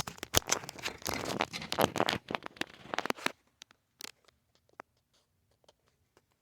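Plastic being handled: dense crinkling and crackling with sharp clicks for about three seconds, then a few scattered clicks.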